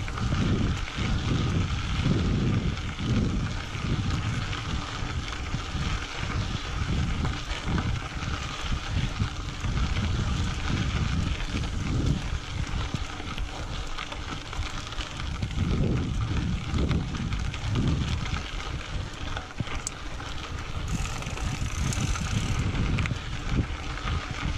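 Mountain bike rolling along a dirt trail, its tyres hissing on the gravel, under heavy wind rumble on the microphone that comes in irregular low surges.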